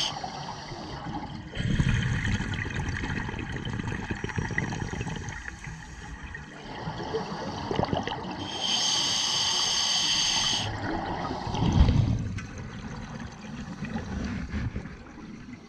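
Scuba diver breathing through a regulator underwater: long rushes of exhaled bubbles, low and rough, alternate with a hissing inhalation of about two seconds a little past the middle.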